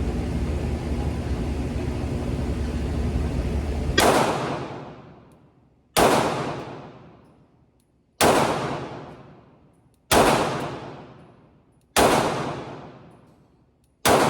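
Glock 19 Gen 5 9mm pistol fired in slow single shots, six in all, about two seconds apart, each with a long echoing tail. A steady rumbling hum fills the first four seconds before the first shot.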